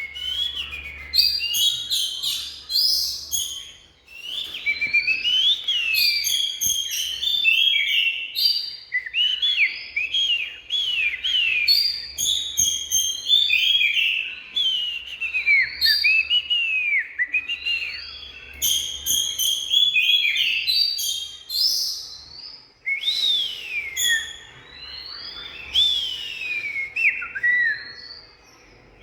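Oriental magpie-robin singing: a continuous run of varied whistled phrases with quick rising and falling glides, broken by a couple of short pauses.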